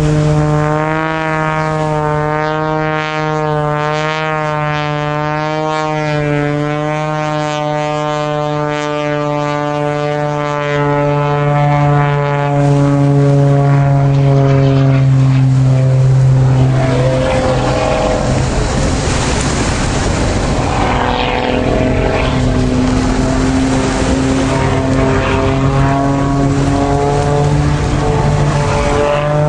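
Aerobatic biplane's piston engine and propeller droning, its pitch wavering and slowly dropping as it manoeuvres. About halfway through, a louder rushing noise takes over, and the engine note comes through again near the end.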